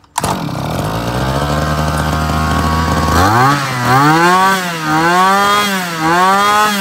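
Kawasaki TG25 two-stroke brush-cutter engine starts suddenly and runs steadily for about three seconds, then is revved up and down about four times before dropping back. It is running on fuel added by hand, and its carburetor air setting still needs adjusting.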